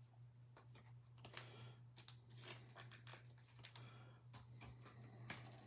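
Near silence: faint rustling and light clicks of trading cards being handled and shuffled through, over a low steady hum.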